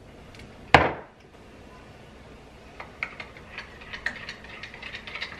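One sharp knock about a second in, then a spoon stirring in a ceramic coffee mug, clinking against the sides a few times a second.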